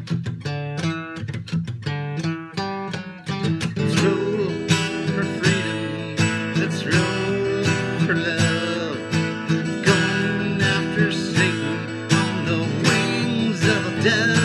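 Acoustic guitar strummed in an instrumental break of a song, with clearly separated strokes at first. About four seconds in, a second, wavering melody line joins over the chords.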